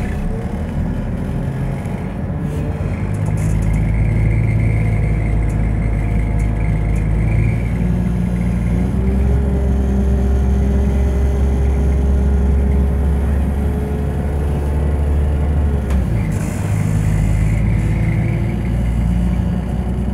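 Underfloor diesel engine and ZF Ecomat transmission of a Class 172 DMU, heard from inside the passenger saloon as the train accelerates away from a station. The engine note steps up about nine seconds in and drops back about sixteen seconds in.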